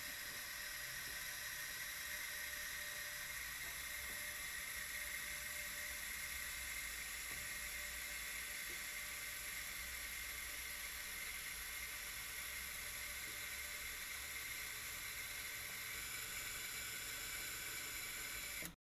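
Faint, steady hiss of background noise with a few faint steady tones and no distinct event; it cuts off abruptly near the end.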